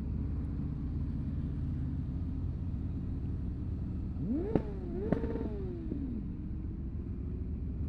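Motorcycle engine running steadily on the road as a low drone. About halfway through, an engine revs, rising and falling in pitch twice, with two sharp clicks.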